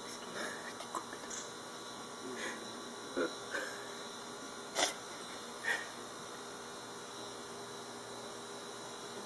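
Steady electrical room hum with a few faint, short handling noises and one sharp click about five seconds in.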